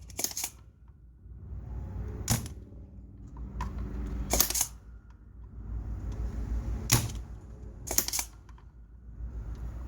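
Spring-loaded desoldering pump snapping as it sucks solder from a MOSFET's legs on an amplifier's power-supply board: five sharp clicks a second or two apart, over a low steady hum.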